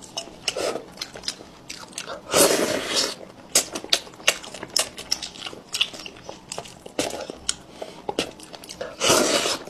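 Close-miked mukbang eating of saucy braised fish: wet chewing and lip smacking with many small clicks, and two louder half-second sucking bursts, about two and a half seconds in and near the end.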